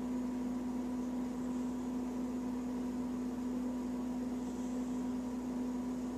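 A steady, unchanging electrical hum with a faint hiss beneath it.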